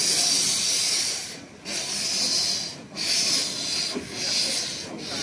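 Corris Railway No. 10, a newly built narrow-gauge steam locomotive, blowing steam from its open cylinder drain cocks in about four long hisses a second or so apart as it moves off slowly.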